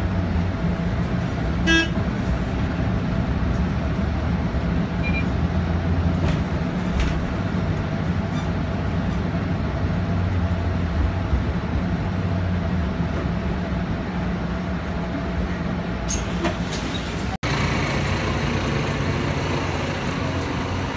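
Mercedes-Benz city bus heard from inside near the front, its engine running with a steady low drone as it drives. About two seconds in there is a brief pitched tone. Near the end the sound cuts to outdoor street traffic.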